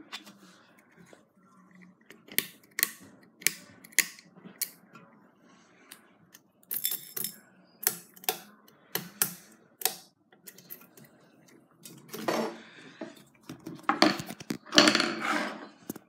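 Irregular sharp metallic clicks and jingles as a Hunter ceiling fan is handled, its bead pull chain rattling against the metal motor housing. There are louder rustling bursts about twelve seconds in and near the end.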